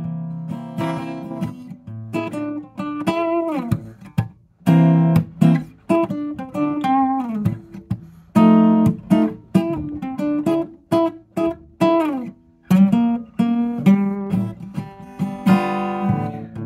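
Acoustic guitar played solo: a run of plucked and strummed notes and chords with sharp attacks, some notes bending in pitch, with short breaks between phrases.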